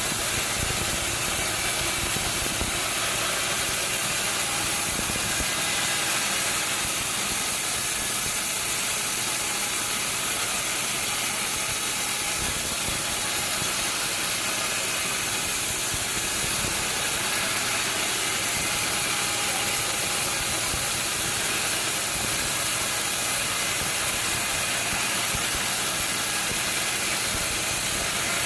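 Sawmill machinery running: a steady, even mechanical noise with a hiss-like top and no breaks.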